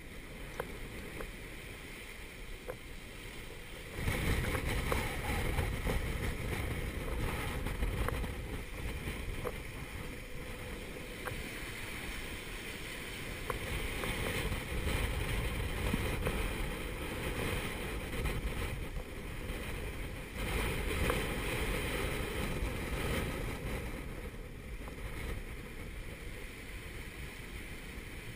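Gale-force wind buffeting the microphone over rushing and breaking water around the stern of a Contessa 32 sailboat running downwind in a Force 7 gale. The noise jumps up suddenly about four seconds in, then swells and eases as gusts and seas pass.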